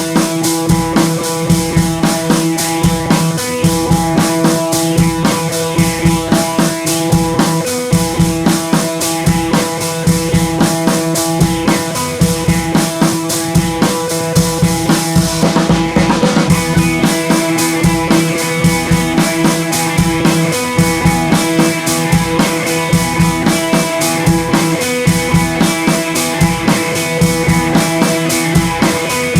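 Background music with a steady drum-kit beat, bass drum and snare, over sustained tones.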